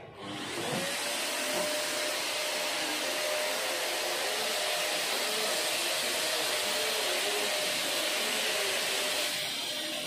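Stick vacuum cleaner switching on, its motor whine rising to a steady pitch within about a second, then running steadily as it is pushed over artificial grass. It turns a little quieter near the end.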